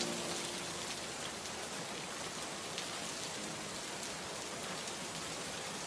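Steady rain falling, an even wash of drops with no change in strength.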